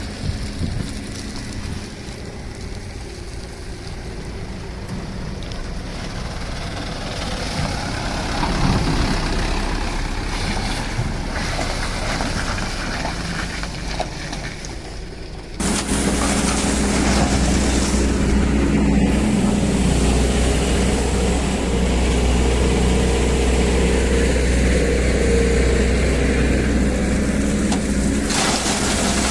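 Diesel engine of a SANY SY215C excavator running while it works; about fifteen seconds in the sound steps up abruptly to a louder, steady engine drone.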